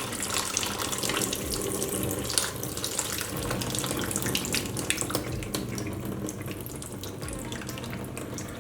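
Kitchen tap running and water splashing in the sink as salad is rinsed, with scattered small knocks and clicks. The flow eases gradually toward the end.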